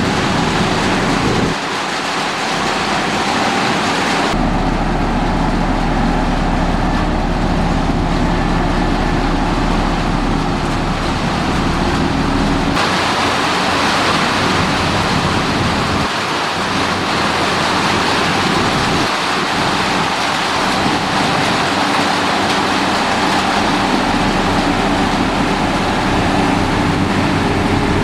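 Heavy road-construction machinery, such as motor graders, with diesel engines running steadily under load over a constant noisy background. The sound changes abruptly three times, about one and a half, four and thirteen seconds in.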